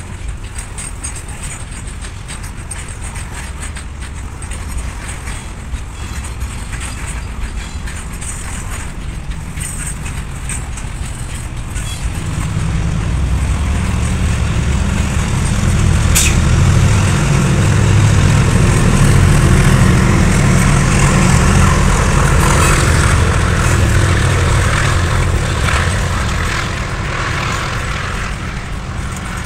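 Loaded double-stack container wagons of a freight train rolling past on the rails: a steady rumble of wheels and wagons that grows louder about halfway through and eases off near the end, with one sharp clank about 16 seconds in.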